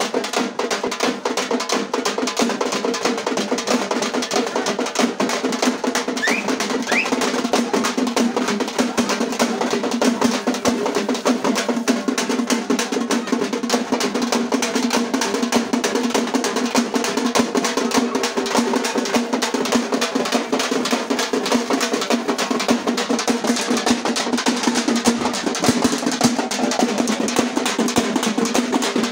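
Rapid, continuous drumming: a dense roll of strokes with no let-up, over a steady low droning tone.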